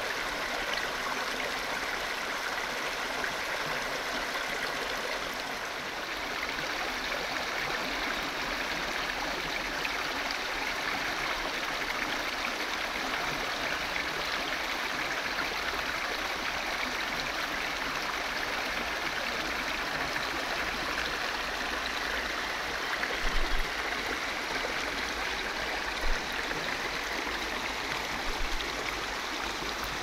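River water rushing steadily over low rock ledges and small cascades, with a few brief low thumps in the last several seconds.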